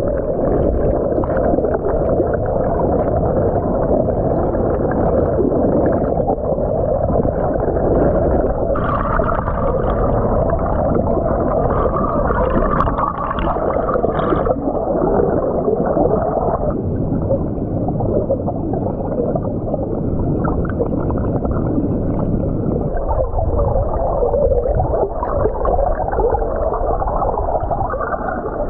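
Churning stream water and bubbles heard underwater through the camera's waterproof housing: a loud, steady, muffled rush, a little brighter for a few seconds midway.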